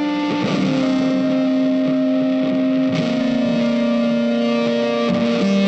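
Background instrumental music: long held notes that step to a new pitch about every two and a half seconds.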